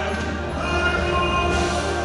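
Church hymn music: sustained chords, organ-like, held over a steady low hum in a pause between sung lines of a congregational hymn, with singing returning right after.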